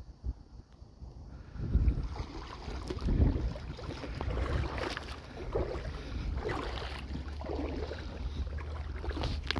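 Wind gusting on the microphone, a low buffeting rumble that picks up about a second and a half in, over the wash of shallow sea water.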